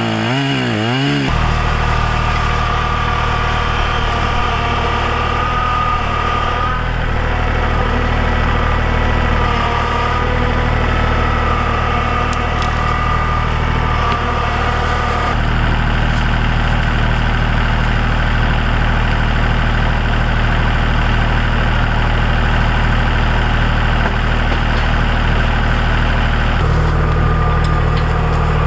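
An engine running steadily. Its pitch wavers up and down for about the first second, then holds, changing in steps at about 15 seconds in and again near the end.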